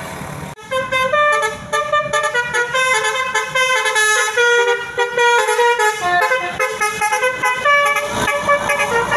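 Bus telolet horn (Basuri multi-tone air horn) playing a quick melody of changing notes, starting about half a second in.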